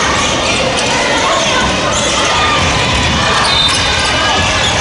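Game sounds in a gymnasium: a basketball being dribbled on the hardwood floor, with sneakers squeaking briefly a little after three and a half seconds and players' voices in the echoing hall.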